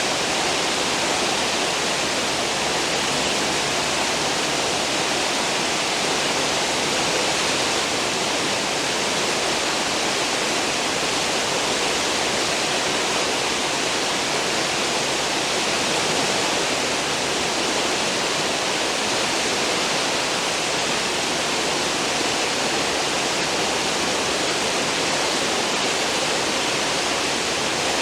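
Cruise ship's stern wake: a steady, even rush of churning, foaming water.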